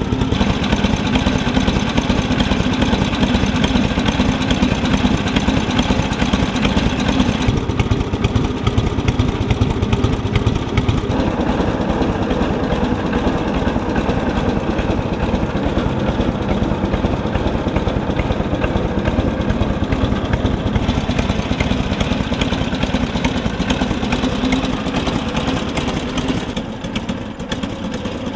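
1948 Indian Chief's side-valve V-twin engine ticking over at a steady idle, brought back to running after 40 years laid up.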